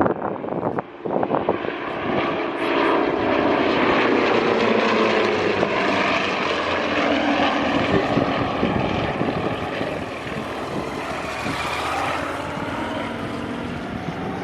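Propeller airplane engine running as the aircraft flies a display pass, swelling to its loudest a few seconds in and then easing slightly. A few sharp knocks in the first second or so.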